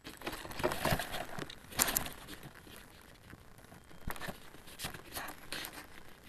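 Handling noise picked up by a camera on the nose of a Radian RC glider: irregular rustling and crinkling with sharp knocks, loudest about two seconds in, as the plane is moved about on the ground with its motor stopped.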